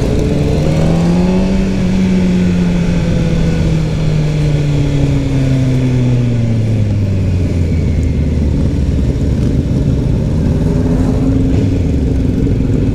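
Sport motorcycle engine heard on the move. Its pitch climbs over the first couple of seconds, then falls steadily as the bike eases off, then runs low and steady with a slight rise near the end, over a constant rush of wind and road noise.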